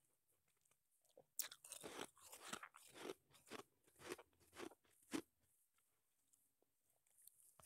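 Soft crunching of snowball shaved ice being chewed, close-miked at the mouth. A quick run of about ten crunches starts about a second and a half in and stops about five seconds in.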